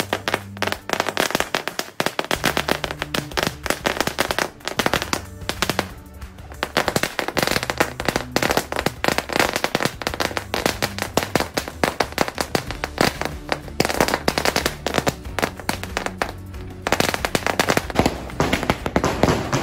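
A 20,000-wala chain of firecrackers burning along its string, going off in a rapid, continuous rattle of bangs with a few brief lulls. Music plays underneath.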